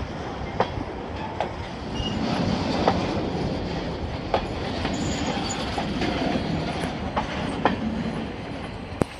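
Freight train of covered hopper cars rolling past close by: a steady rumble of steel wheels on the rails, with sharp clacks at the rail joints every second or two. The sound eases as the last car goes by near the end.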